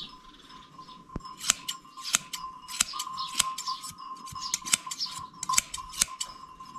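Hand blade shears snipping through a ram's dense, matted fleece, with sharp metallic clicks at an uneven pace of about two a second. The new shears are cutting poorly through the thick, tangled wool.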